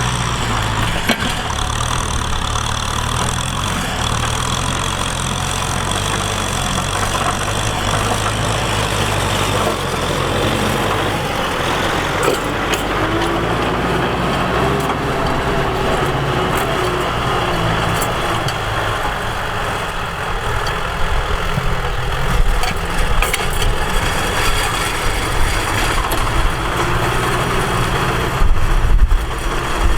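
Tractor engine running steadily while ploughing, with a low, even hum that turns rougher in the second half and some irregular knocks near the end.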